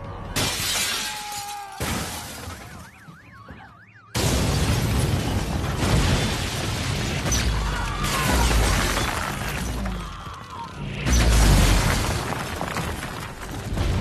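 Staged destruction sound effects with background music: sudden crashes with glass shattering. About four seconds in a loud continuous noise of fire and destruction starts abruptly, and it swells again near the end.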